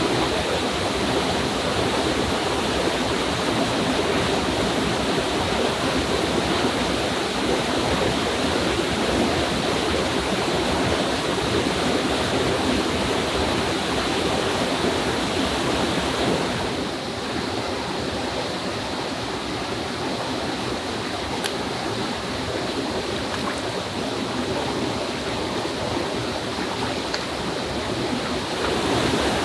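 Steady rush of a small waterfall pouring into a rocky pool. About halfway through it turns softer and duller, and it comes back to full strength near the end.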